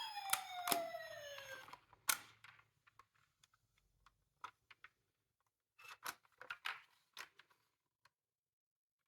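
A toy emergency vehicle's electronic siren sliding down in pitch and fading out over the first second and a half, with a couple of sharp clicks. After that come scattered small clicks and rattles from the miniature cars.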